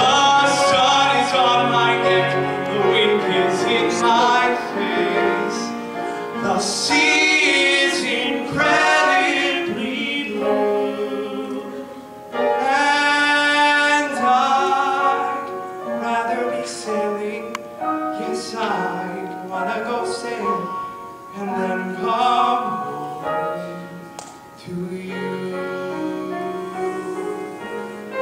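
Solo male voice singing a musical-theatre song into a handheld microphone, with long held notes, over piano accompaniment.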